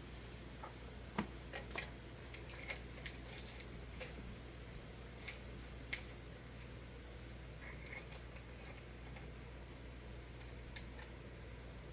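Scattered small clicks and clinks of hand work on a ceiling fan's light fitter as glass shades and their small holding screws are handled and fitted. The sharpest clicks come about a second in and about six seconds in.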